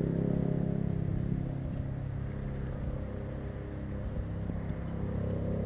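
An engine running steadily nearby, a low drone that holds one pitch.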